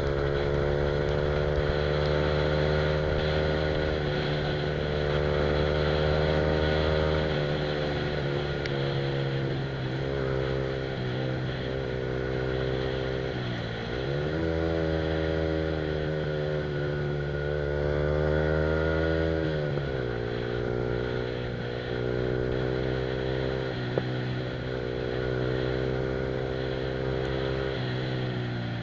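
Yamaha R15's single-cylinder engine running through an aftermarket Akrapovic exhaust while riding along. The engine note holds steady, dips sharply and recovers about halfway through, drops to a lower steady note about two-thirds of the way in, and dips again at the very end.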